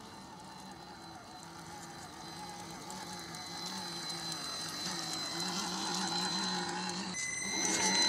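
Electric drive of an RC scale crawler truck, its brushed motor and geared drivetrain whining steadily and growing louder as the truck comes closer. About seven seconds in the whine changes abruptly, with a new higher tone.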